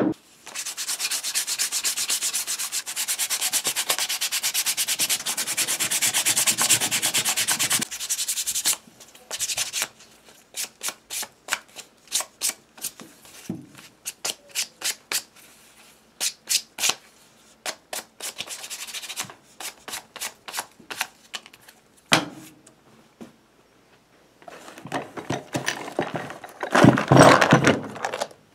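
Sandpaper rubbed back and forth on the edges of a leather wallet: about eight seconds of fast, continuous strokes, then slower separate strokes, with a louder bout of rubbing near the end.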